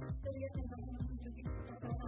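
Electronic background music with a steady kick-drum beat, ticking hi-hats and a synth melody.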